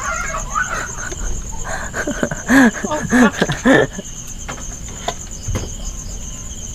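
Crickets chirping steadily in a fast, even pulse. Around the middle come three short calls in quick succession, each rising and falling in pitch, the loudest sound here, with a few faint clicks scattered through.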